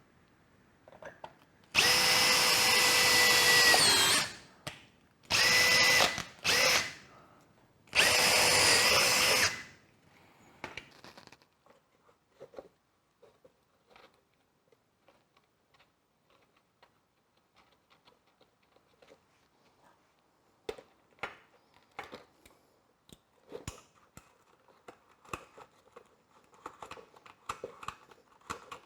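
Power drill drilling holes in machine bellows: four runs of a steady motor whine in the first ten seconds, the first about two seconds long and the second and third short. Light clicks and handling noises follow for the rest of the time.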